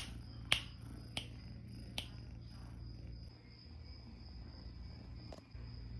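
Finger snaps, four sharp ones spaced further and further apart over the first two seconds, made to get a kitten's attention, with one faint click near the end. Under them runs a faint, steady high-pitched tone.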